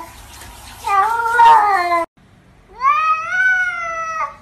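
Two long, drawn-out cat meows. The first wavers in pitch and cuts off abruptly about two seconds in. The second rises in pitch at its start, then holds until near the end.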